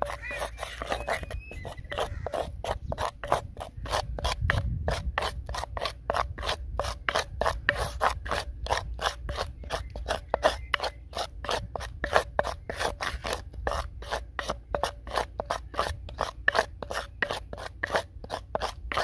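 Wooden spatula scraping and stirring a thick yogurt-and-ground-spice paste against the inside of a clay bowl, in quick, even strokes about three to four a second.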